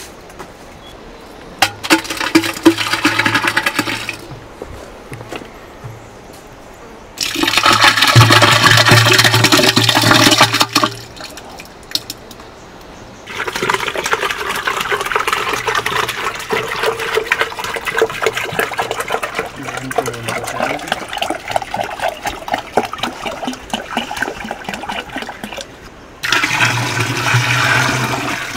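Liquid pouring in several spells: water splashing from a plastic jerrycan into a plastic bucket of curd, the loudest spell lasting a few seconds and a long one running in the middle. Near the end the thinned white curd is poured into a tall wooden vessel.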